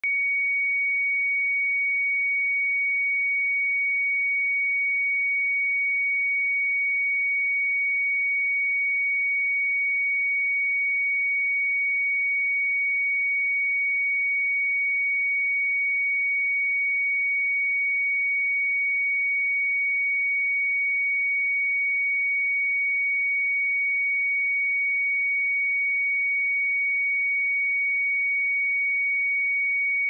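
A pure sine-wave test tone at 2242 Hz, one steady high-pitched pitch held at constant loudness.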